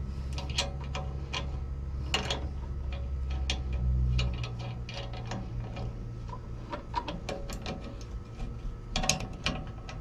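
Irregular metal clicks and clinks of a wrench working the stabilizer chain bolts and hardware on a tractor's three-point hitch. A low steady hum underneath stops about four seconds in.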